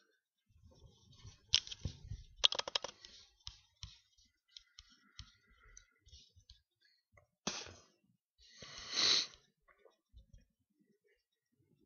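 Quiet room with scattered sharp clicks from a computer mouse and desk, including a quick rattle of clicks about two and a half seconds in. A short breathy hiss comes about nine seconds in.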